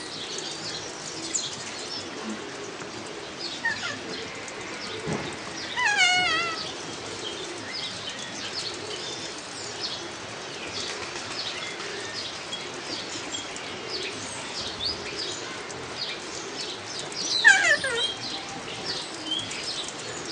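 Kea, the New Zealand parrot, giving its falling, wavering screech twice: about six seconds in and again about three seconds before the end. Many short, faint high chirps run underneath.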